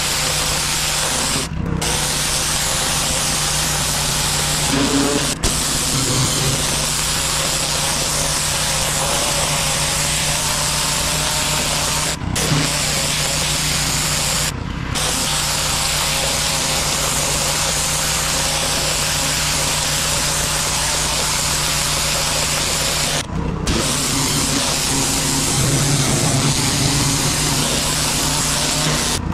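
Pressure washer wand jetting high-pressure water onto concrete: a loud, steady spray hiss over a steady low hum. The hiss cuts out for a moment about four times, where the trigger is let go, and comes straight back.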